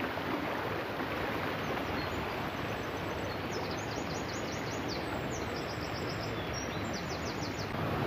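A small mountain stream rushing over rocks, a steady even noise. From about three seconds in, a bird's quick high chirps come in short runs.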